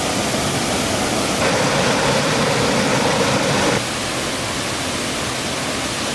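Steady rush of a waterfall's falling water. For a couple of seconds in the middle it is louder and brighter, starting and stopping abruptly.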